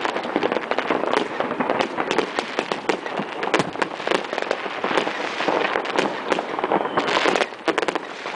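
Many New Year's fireworks and firecrackers going off at once: a dense, continuous crackle of overlapping bangs and pops, easing briefly about seven seconds in.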